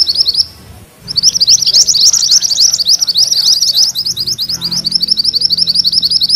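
Mantenan kuning songbird singing a fast rolling trill (ngerol) of rapid, repeated high rising notes, about eight a second. The trill breaks off briefly about half a second in, then resumes without a pause.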